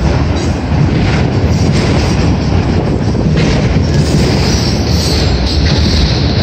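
Freight train of autorack cars rolling past, a steady rumble of steel wheels on the rails with faint clicks as the wheels cross rail joints.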